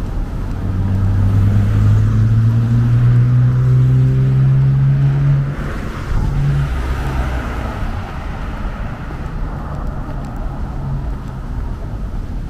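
A road vehicle's engine accelerating, its pitch rising steadily for about five seconds before cutting off suddenly, over steady traffic noise.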